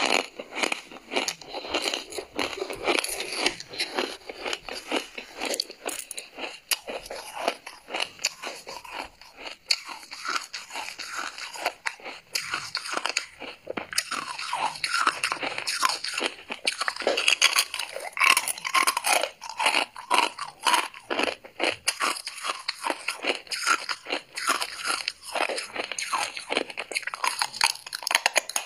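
Lumps of freezer frost being bitten and chewed close to a clip-on microphone: a continuous run of rapid, crisp crunches.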